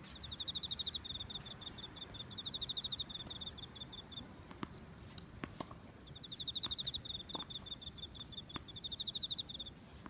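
Bell crickets (suzumushi) singing: two long, high, rapidly pulsing trills of about four seconds each with a short pause between. In the pause and under the second trill come a few faint sharp knocks of tennis balls being hit.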